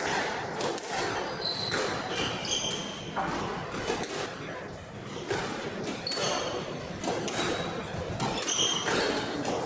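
Squash rally: the ball is struck by the rackets and smacks off the court walls again and again, with sharp squeaks of shoes on the wooden floor in between.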